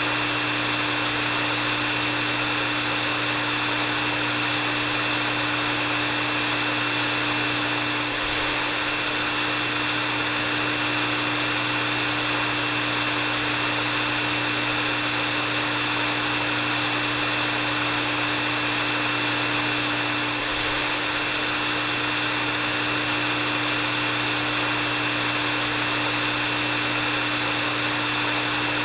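Hair dryer running steadily on a continuous setting: an even rush of air with a steady high whine and a lower hum over it.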